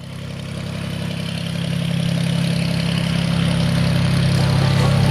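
Small plane's piston engine droning steadily in flight, fading in from silence and growing louder over the first couple of seconds.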